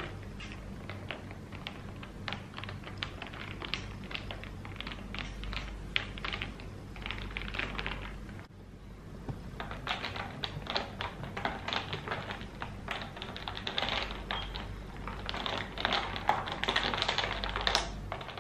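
Ice cubes clinking and rattling against the inside of a tall glass as iced coffee is stirred with a straw: a fast, uneven run of small clicks. It breaks off briefly about eight and a half seconds in and grows busier near the end.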